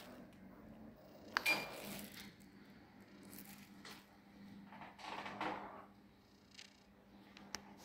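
Motor of a motorised projector screen running with a faint, steady low hum as the screen unrolls. There is a sharp click about one and a half seconds in.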